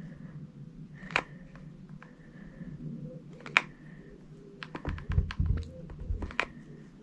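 Bosch cordless hot glue gun being squeezed: scattered sharp clicks, with a quick run of them from about five to six and a half seconds in, and a few dull knocks of handling among them.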